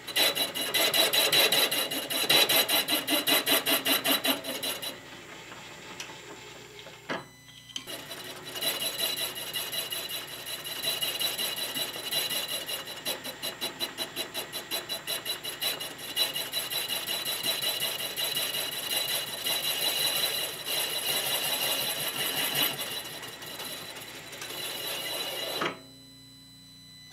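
Knee mill spindle turning a boring bar with a left-hand high-speed-steel tool, cutting a cement mixer yoke journal down to the shoulder: a metal-cutting scrape over a steady whine that pulses rhythmically. It is loudest for the first few seconds, eases, breaks off briefly about seven seconds in, resumes, and stops near the end.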